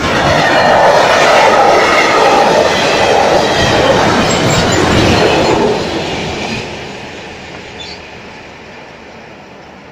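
Freight train wagons passing at speed over the crossing, a loud steady rumble and clatter of wheels on rail. It fades away from about six seconds in as the last wagon clears.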